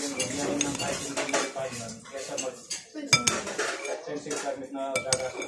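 A metal spoon clinking and scraping against a bowl while eating noodle soup, with a run of small clatters and sharp clinks about three and five seconds in.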